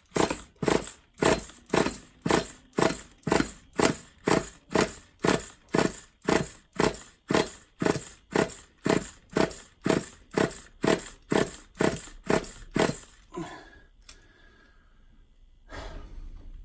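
A small nitro RC car engine being pull-started: quick, rapid pulls of the recoil starter, about two a second, repeated some twenty-five times. The engine never fires, and the pulls stop after about thirteen seconds.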